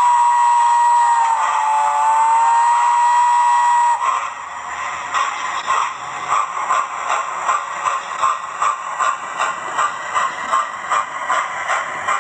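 Hornby A4 model locomotive's TTS digital sound decoder playing through its small onboard speaker. A chime whistle sounds for about four seconds, dipping slightly in pitch partway, then steam-exhaust chuffs follow at about three a second as the loco pulls away.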